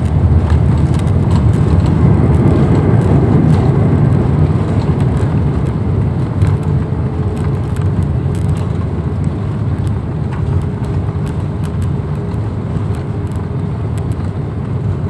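Cabin noise of an Airbus A320 jet rolling along the runway after landing: a steady low rumble from the engines and wheels that slowly fades as the aircraft slows, with a faint steady hum showing through later on.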